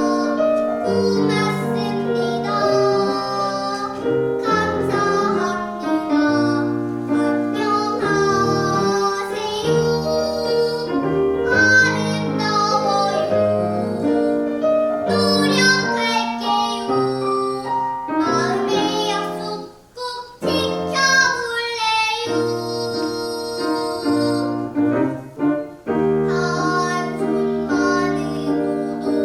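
A young girl singing a Korean children's song (dongyo) over piano accompaniment, with a brief pause between phrases about two-thirds of the way through.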